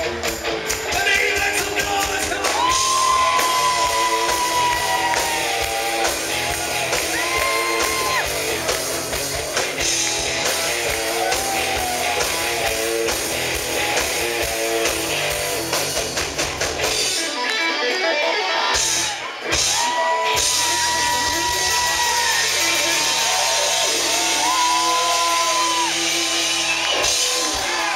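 Live rock band playing loud on stage: distorted electric guitars with bent, held notes over bass and drums. A little past the middle the bass and drums drop out for a few seconds, then the full band comes back in.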